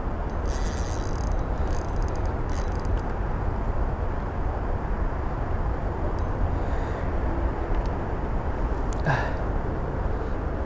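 Steady wind rumble buffeting the camera microphone, with a few faint clicks and rattles in the first three seconds.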